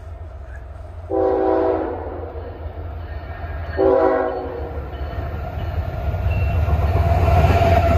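Diesel locomotive air horn on an approaching CSX intermodal train sounds two blasts, the first longer, about a second and four seconds in. Under the blasts, the low rumble of the locomotives' diesel engines grows steadily louder as the train nears.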